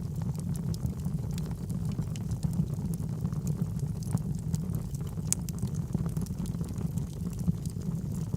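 Wood fire burning in a fireplace: a steady low rumble of flames with frequent small crackles and pops, one sharper pop about five seconds in.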